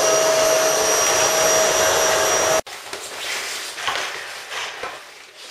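Canister vacuum cleaner running steadily with a high whine, cutting off suddenly about two and a half seconds in. Then quieter, irregular scuffling and knocks of puppies playing on a tiled floor.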